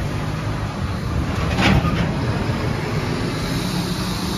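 TIG welding arc burning on a steel pipe joint: a steady hiss over a low hum, with a brief louder rush about a second and a half in, as a finishing bead is laid on the pipe test.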